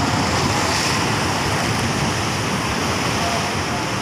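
Sea surf washing in and breaking over shoreline rocks: a steady rushing of waves.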